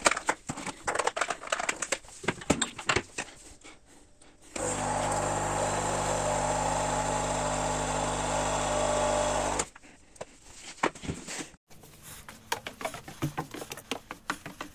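Clicks and knocks of a capsule holder being handled and loaded into a Krups Dolce Gusto capsule coffee machine. About four and a half seconds in, the machine's pump starts a steady loud buzz as it brews coffee into a cup, stopping abruptly about five seconds later. Scattered knocks and clicks follow.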